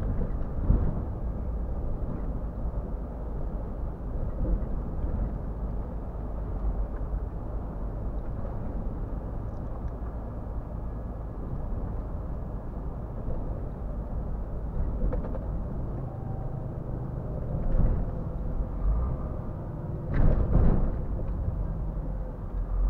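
Scania R450 truck heard from inside its cab while driving through town: a steady low engine and road rumble, with a few short knocks and a louder patch about twenty seconds in.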